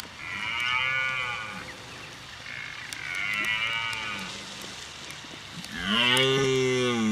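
Cattle mooing: three drawn-out moos, the first two fainter and higher, the third the loudest and deepest, starting near the end.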